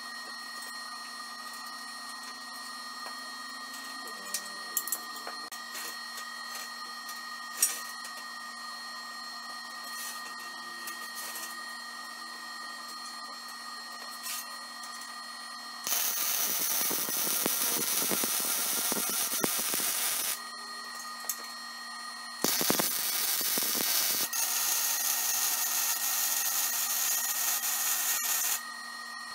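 MIG welder arc crackling as it welds joints in quarter-inch-wall steel tubing, in two runs of about four and six seconds with a short pause between, over a steady shop hum.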